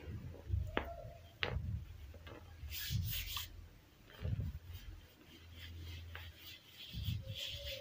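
Hands rubbing and crumbling soft gym chalk and cornstarch powder, with gritty crunching and a sifting hiss as the powder pours from cupped hands. A few sharp clicks come about a second in.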